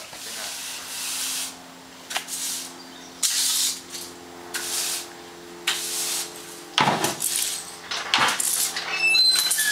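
Push broom sweeping a concrete garage floor: a run of bristle-scraping strokes, roughly one a second.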